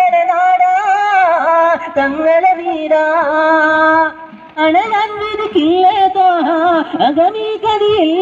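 A high voice singing an Islamic devotional song in long, ornamented phrases, with a short break about four seconds in.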